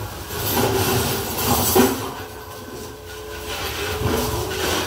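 Commercial kitchen dishwashing noise: water and machinery running steadily with a faint hum, and a single clank of metal ware about two seconds in.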